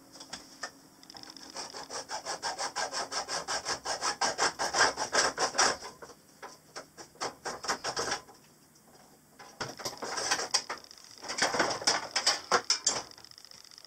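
Hacksaw cutting through old copper propane supply pipe in quick back-and-forth strokes. The sawing stops about eight seconds in and starts again after a short pause.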